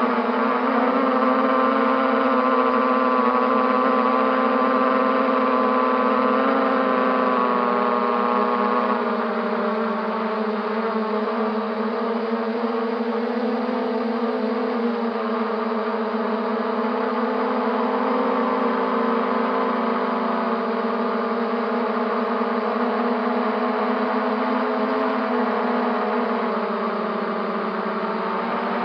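MJX Bugs 3 quadcopter's brushless motors and propellers running in flight, a steady pitched drone whose pitch wavers slightly as the throttle changes.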